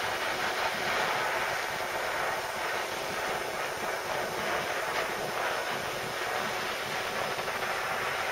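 Masterclass handheld butane blowtorch burning with a steady hiss of flame, heating a lead weight held in pliers.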